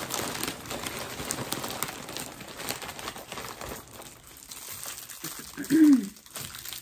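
Thin plastic mailer bag crinkling and tearing as it is pulled open by hand, busiest in the first few seconds. A short voice sound, such as a hum, comes near the end.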